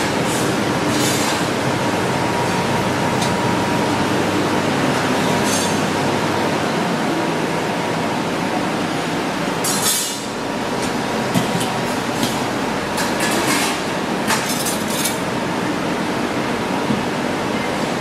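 Metallic clinks of stainless-steel buffet chafing-dish lids and serving utensils, a few scattered and a cluster starting about ten seconds in, over a steady rushing background noise.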